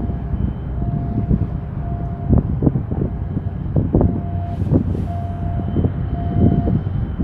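Wind rumbling on the microphone and choppy harbour water slapping against a concrete seawall in irregular splashes, with a faint thin tone coming and going.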